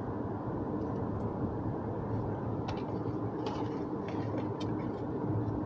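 Steady road noise inside a moving car's cabin: a low rumble of tyres and engine, with a few faint ticks about halfway through.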